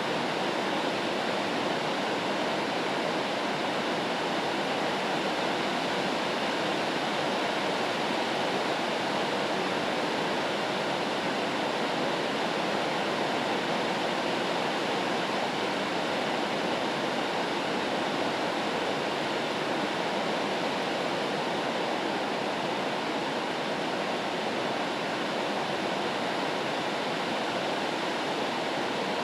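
Steady rain white noise: an even, unbroken hiss that holds the same level throughout.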